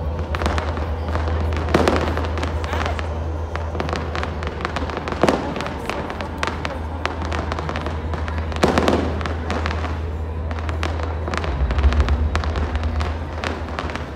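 Aerial fireworks bursting: a handful of louder booms a few seconds apart, with many sharp pops and crackles between them.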